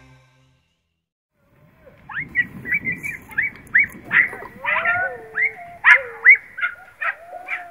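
Hunting dogs yelping in a rapid run of short, high, sweeping calls, starting about two seconds in after a brief silence and coming faster toward the end.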